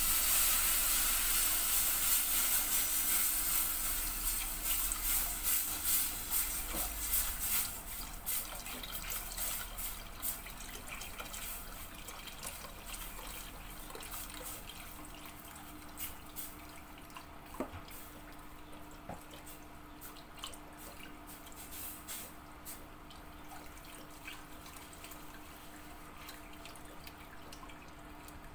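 Milk poured into a hot butter-and-flour roux in a stainless steel pot, hissing loudly for the first several seconds and quieter after about eight seconds, while a silicone whisk stirs and clicks against the pot.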